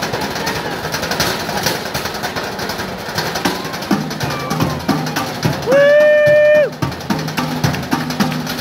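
Fast, driving drumstick rhythm played on galvanized metal trash cans and lids, with deeper booming strikes joining about halfway through. Near the middle, a long, loud shout is held on one pitch for about a second.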